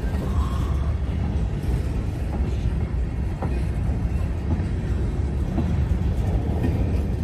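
Covered hopper cars of a freight train rolling past, a steady low rumble of wheels on rail with a few faint clicks.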